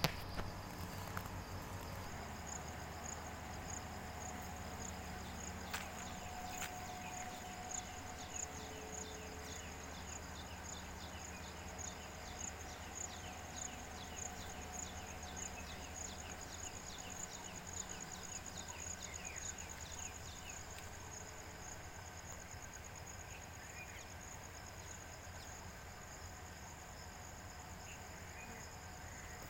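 Insects chirping steadily with a high, fast pulsing trill, joined for a stretch in the middle by a series of short falling chirps.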